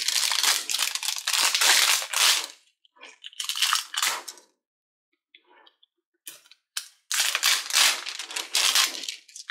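Slime kit's packaging being torn open and crinkled: three bouts of crackling rustle, the last starting after a quiet pause about two-thirds of the way in.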